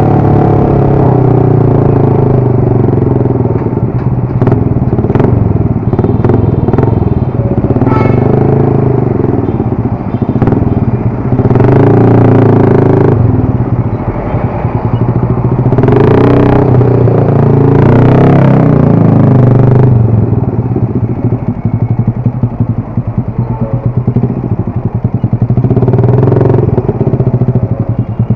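Motorcycle engine running while riding, its pitch rising and falling with the throttle, with several louder rushes of noise along the way.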